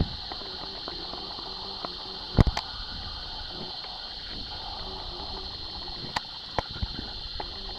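Steady high-pitched drone of rainforest insects, with a few short knocks and bumps from the red titi monkey clambering about and the camera being handled, about two and a half seconds in and again near six seconds.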